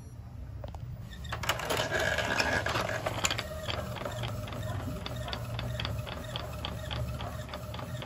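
Epson L220 inkjet printer working on a thick card sheet. First comes a short stretch of louder mechanical noise. Then the print-head carriage runs back and forth with a steady motor whine and regular clicks about three a second.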